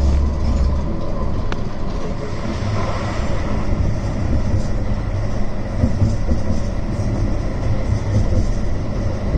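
CAF Urbos 3 tram running along the track, heard from inside: a steady low rumble of wheels on rail with uneven knocks. A deep steady hum in the first second cuts off abruptly.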